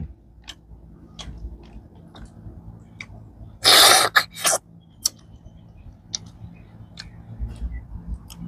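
A person eating freshwater snails: scattered small clicks and smacks of chewing, and about three and a half seconds in a loud sucking slurp, lasting about half a second, as a snail is sucked out of its shell, then two shorter sucks.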